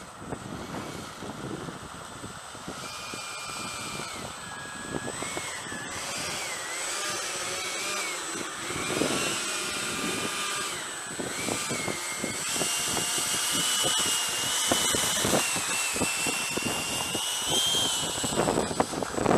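Electric ducted fan of an FMS 70 mm EDF F-18 model jet whining, its pitch rising and falling as the throttle is worked, then held higher through the second half before dropping near the end. Gusty wind rumbles on the microphone underneath.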